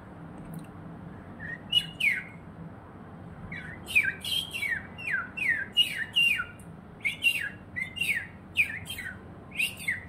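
Parrots giving a rapid series of short calls, each falling in pitch, a little over two a second in uneven runs.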